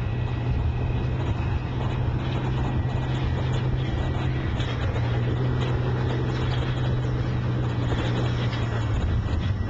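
Tracked armoured personnel carriers driving on a dirt track: a loud, steady, deep engine drone with faint clanking of the tracks.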